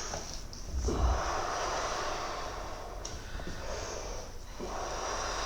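A patient's slow, deep breathing, as called for before a chiropractic adjustment: one long breath, then another beginning about four and a half seconds in.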